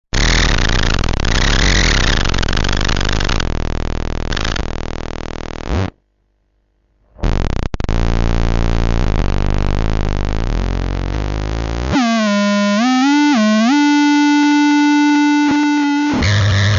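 Glitchy electronic sound effect: harsh buzzing noise that cuts out for about a second, returns, then gives way to a steady synthesizer-like tone that bends down and back up twice before holding.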